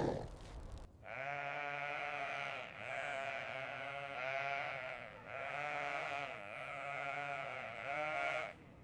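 A voice giving three long, wavering, bleat-like cries, each lasting two to three seconds.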